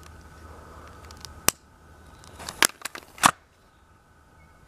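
Sharp clicks and clacks of a cheap break-barrel spring pellet gun being handled and snapped shut after loading a firecracker and lighting its fuse, the loudest clack about three seconds in, over a faint steady hiss.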